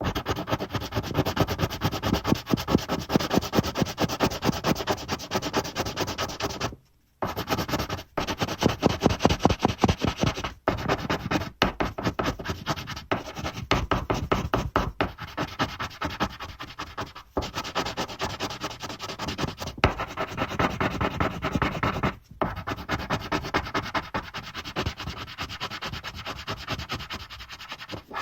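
Pencil shading on paper: rapid back-and-forth strokes of graphite rubbing across the sheet. There is a short pause about seven seconds in and a few brief breaks later.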